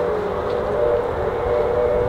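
Steam locomotive whistle giving a long, steady blast, with several notes sounding together like a chime.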